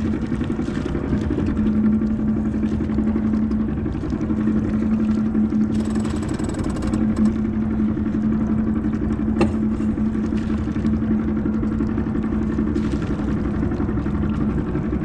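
A sailboat's inboard engine running steadily under way, a continuous hum. A brief hiss about six seconds in and a sharp click about nine seconds in.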